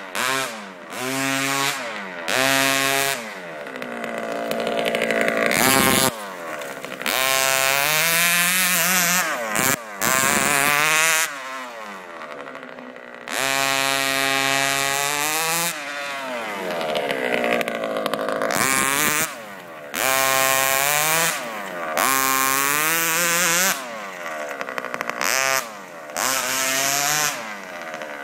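Small two-stroke petrol engine of a radio-controlled truck, revved hard and backed off over and over, its pitch sweeping up and down as the truck accelerates, slows and turns, with short drops to idle between bursts of throttle.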